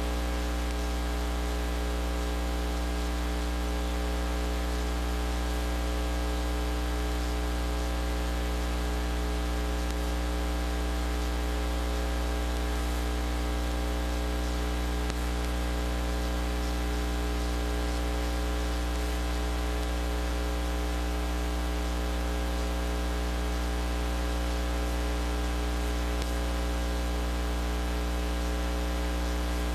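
Steady electrical mains hum with many overtones under a constant hiss, unchanging throughout: noise in the recording chain, with no other sound on the track.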